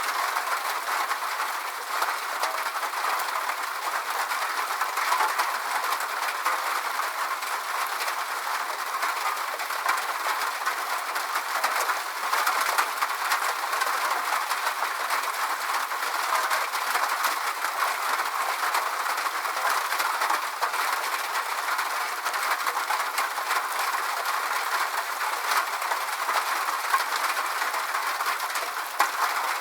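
Steady rain: an even hiss of many small drops ticking, with no change in level.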